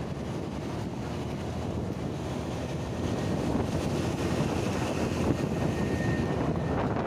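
Car driving along a road: steady road and engine rumble with wind buffeting the microphone, getting a little louder about three seconds in.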